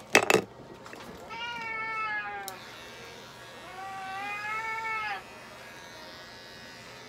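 A couple of sharp knocks right at the start, then a long-haired cat held on the exam table gives two long, drawn-out meows, each about a second and a half. From about six seconds in, electric pet clippers run with a steady high buzz as its fur is clipped.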